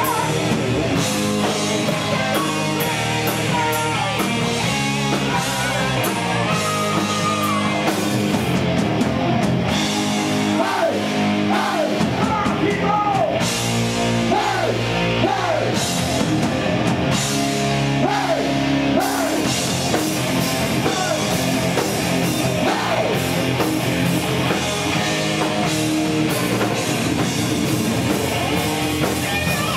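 Heavy metal band playing live: electric guitar over a drum kit with cymbals, loud and steady throughout.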